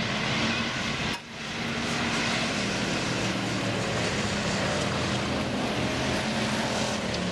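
Engines of several dirt-track race cars running together around the oval, a steady loud drone that dips briefly a little over a second in.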